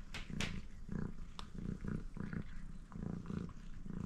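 Domestic cat purring while being petted, the purr swelling and falling about twice a second with its breathing, with a few sharp clicks as it chews food off the floor.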